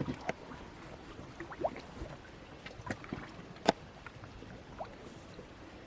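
Seawater sloshing and trickling in the holes of shoreline rock, with scattered small drips and clicks. The sharpest click comes a little past halfway.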